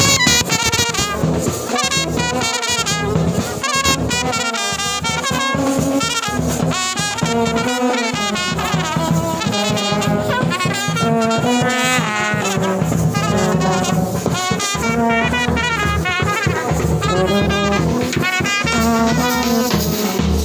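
Indian village brass band playing a wavering melody on clarinet and trumpets over a steady beat from a bass drum and side drums.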